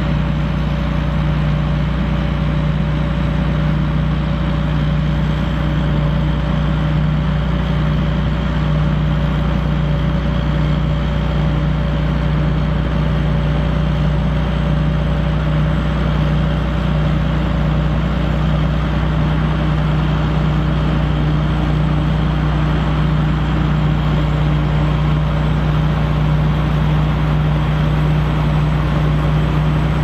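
Diesel engines of two John Deere tractors working in tandem through deep mud, a steady drone with a constant low hum that does not change pitch.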